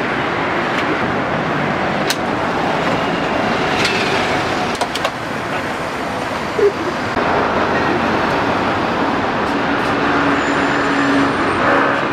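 Steady road traffic noise from passing cars and buses, with a few sharp light knocks about two and five seconds in.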